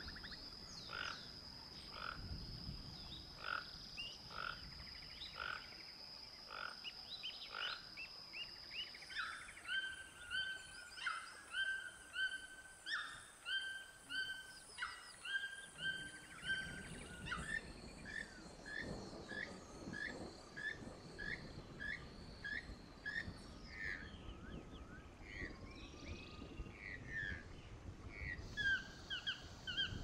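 Recorded calls of wild toucans, one call about every second: a red-billed toucan, then a channel-billed toucan further on. Under the calls runs a steady high whine that shifts pitch partway through.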